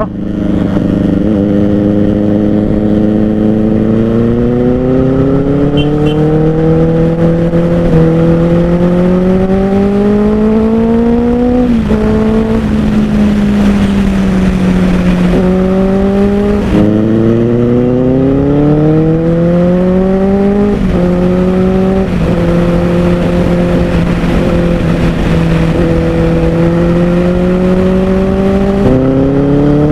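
Benelli 600i's inline-four engine through an IXIL X55 slip-on exhaust, pulling hard under acceleration. The note rises steadily through the revs and drops sharply at each upshift, several times. It then holds a steady cruising note before climbing again near the end.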